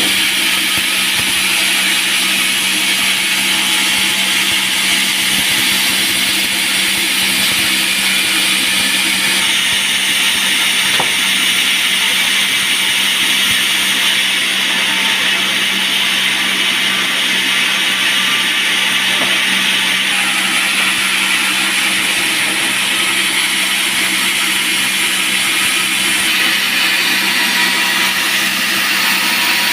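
Band sawmill running and cutting through a teak log: a steady, loud, high-pitched hiss of the blade in the wood over a constant low motor tone, changing slightly in pitch about a third of the way through and again near the end.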